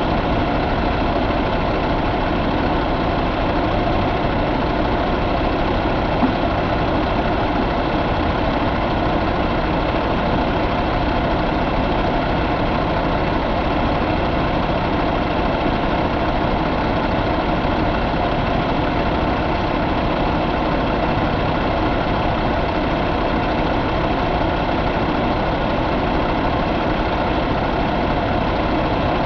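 2016 Cummins ISX15 15-litre inline-six diesel idling steadily, heard up close with the hood open.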